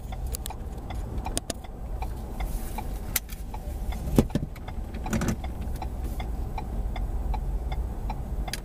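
Low steady rumble of a car stopped on a highway, heard from inside its cabin, with scattered small irregular clicks and a louder knock about four seconds in.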